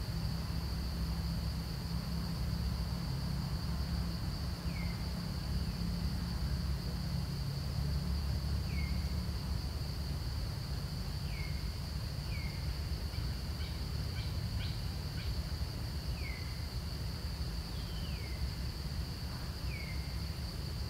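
Outdoor ambience: a steady high insect drone over a low steady rumble, with seven or so short, falling chirps scattered through, and a brief patter of clicks about two-thirds of the way in.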